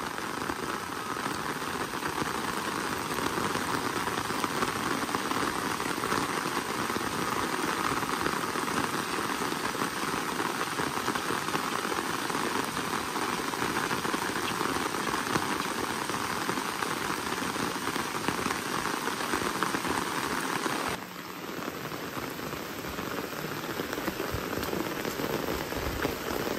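Steady heavy rain pouring down, a dense even hiss of drops. It drops in level suddenly about 21 seconds in, then builds back.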